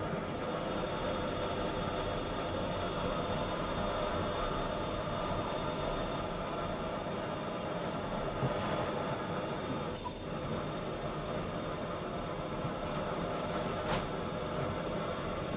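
Steady mechanical hum and rumble of a deep-sea submersible's machinery, several fixed tones over a constant noise, with a couple of faint ticks about eight and fourteen seconds in.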